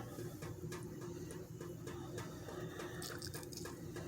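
Lime being squeezed by hand over raw chicken pieces: faint wet squishing and scattered small drips and ticks, over a faint steady hum.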